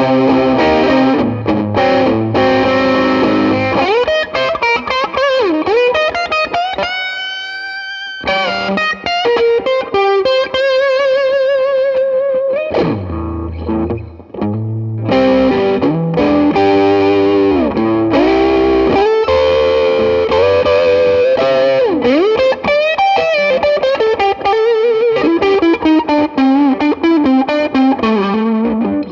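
1982 Burny Les Paul electric guitar played through overdriven gain: a single-note lead solo with wide vibrato, slides up and several notes dipping in pitch and coming back, with a short break about halfway.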